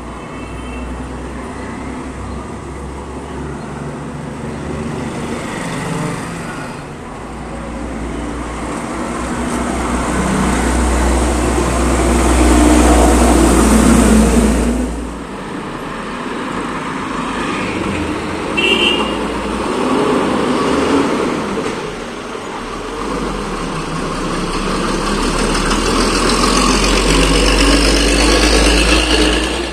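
Street traffic with heavy diesel trucks passing close by, their deep engine rumble swelling to a peak about halfway through, easing, then building again towards the end. A short horn toot sounds about two-thirds of the way in.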